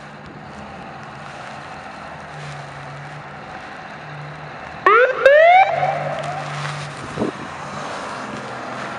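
Turbocharged Detroit Diesel two-stroke engine of a 1995 Spartan Gladiator fire truck running as the truck rolls out of the bay. About five seconds in, its siren gives a short loud burst: a few quick rising chirps, then one brief rising wail that cuts off.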